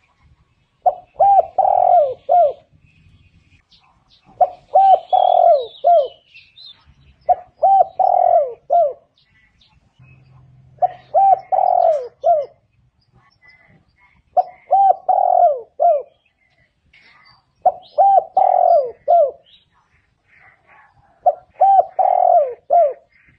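Spotted dove cooing, repeating a short phrase of four or five low coos about every three and a half seconds, seven times. Faint chirps of small birds come between the phrases.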